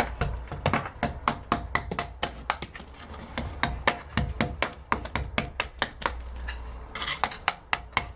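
Hand tools chipping old plaster off a wall: quick, irregular sharp metallic knocks, a few a second, coming faster near the end.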